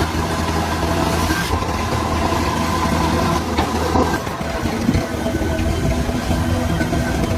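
DH17C3 crawler bulldozer's diesel engine running steadily while it works, with a few short clanks about halfway through.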